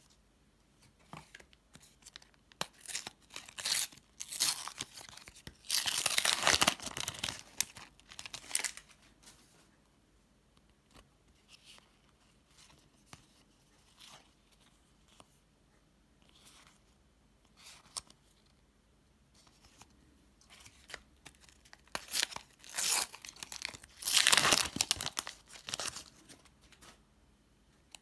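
Panini sticker packets being torn open and their wrappers crinkled, in two bouts about fifteen seconds apart, with light rustling and small clicks of handling between.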